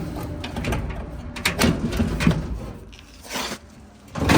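Short knocks and clicks of parts being handled inside an opened dryer cabinet, a cluster of them between one and two and a half seconds in and another near the end.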